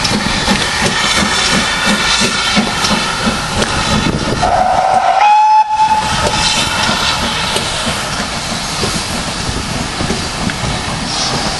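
GWR steam locomotive hauling coaches away, its exhaust beating steadily, with one short whistle blast about four and a half seconds in.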